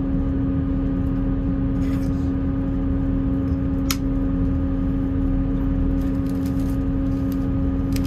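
Class 158 diesel multiple unit heard from inside the passenger saloon, running at a steady speed: a steady drone and hum from the underfloor diesel engine and transmission over the low rumble of the wheels on the rails, with a single sharp click about four seconds in.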